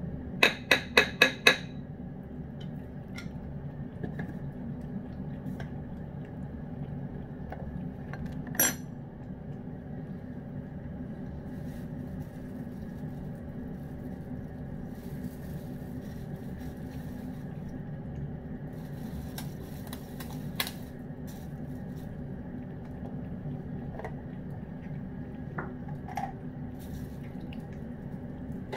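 A cat eating fried chicken from a ceramic bowl: a quick run of about five ringing clinks against the bowl about a second in, and one more clink several seconds later. Faint chewing ticks sit over a steady low hum.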